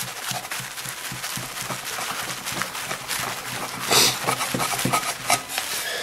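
Cloth rubbed briskly by hand over the aluminium casing of a Kirby vacuum, buffing off metal polish: an uneven scrubbing and swishing with a louder stroke about four seconds in.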